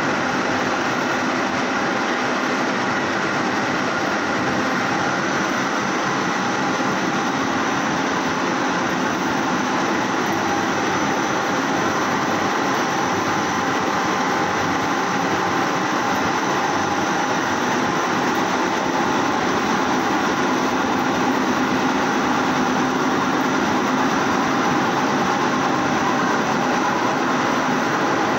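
Industrial laundry machines running: Supershine washer-extractors and tumble dryers making a steady, even whir and hum with a few faint constant high tones.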